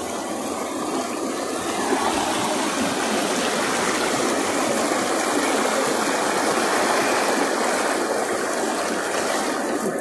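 Rushing water of a monsoon-swollen waterfall stream: a steady, even rush that grows a little louder about two seconds in.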